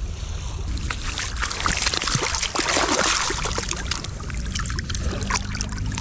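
Shallow seawater splashing and sloshing as a freshly caught kingfish is held down in it, busiest in the middle, over a steady low rumble.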